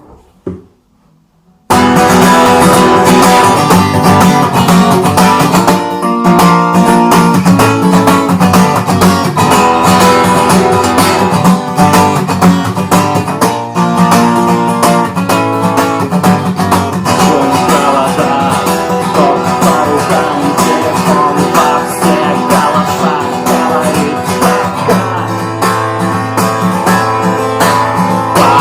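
Strummed acoustic guitar playing the instrumental introduction to a song. It comes in about two seconds in, after a couple of faint knocks.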